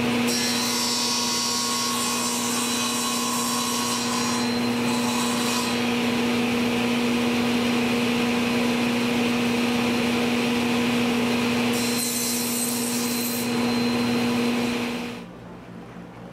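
Table saw running steadily and cutting through a 3/4-inch veneered plywood panel on a crosscut sled to square its edge, a steady motor hum under the rushing noise of the blade in the wood. The sound cuts off sharply about a second before the end, leaving a faint low hum.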